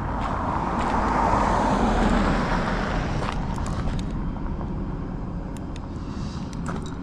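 A car passing on the road, its engine and tyre noise swelling to a peak in the first couple of seconds and then fading away, with a few faint clicks later.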